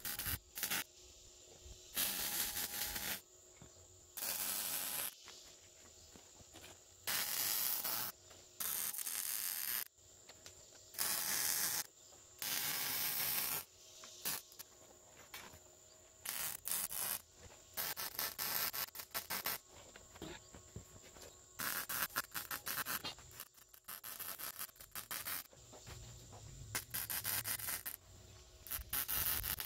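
Wire-feed welder arc-welding joints on a steel square-tubing frame: bursts of crackling hiss, each about a second long with pauses between, give way after the halfway point to quicker, shorter crackling bursts like stitch or tack welds.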